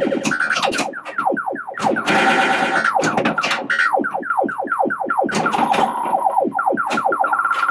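1984 Williams Space Shuttle pinball machine sounding its electronic game effects: runs of quick falling-pitch sweeps, about five a second, in several groups, mixed with sharp clicks.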